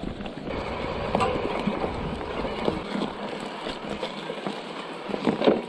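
Mountain bike ridden through tall grass: stalks swishing against the wheels, frame and rider's legs, with irregular knocks and rattles from the bike bumping over rough ground, a few louder ones near the end. The swishing grows louder about half a second in.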